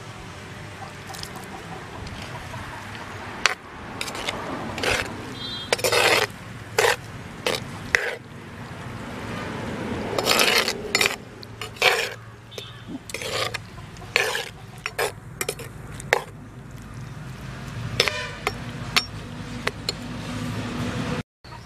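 Stainless-steel slotted spoon stirring a bottle gourd curry in an earthenware cooking pot, with irregular clinks and scrapes of metal against the pot, some of them longer scrapes.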